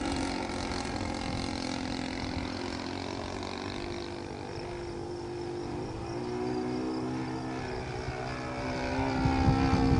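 Saito 1.25 four-stroke glow engine of a model Citabria running in flight, a steady propeller drone overhead. Its pitch shifts about six seconds in, and it grows louder near the end.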